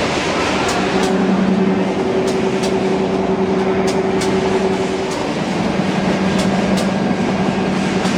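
Hong Ky N1350A wide-belt sanding machine running: a loud, steady mechanical noise with a hum. The hum sets in about a second in, drops out briefly about five seconds in and returns, and faint ticks come now and then.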